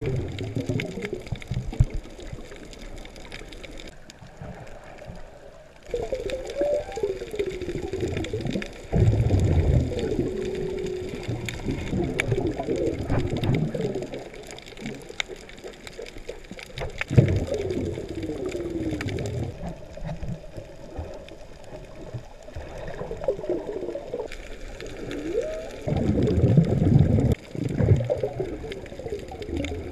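Underwater water noise picked up by a submerged camera: a steady low rush and hiss, with louder gurgling, bubbling swells every few seconds.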